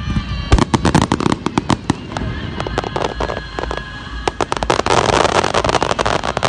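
Fireworks finale: rapid, overlapping bangs and crackling shell bursts, thickening into a dense crackle about five seconds in.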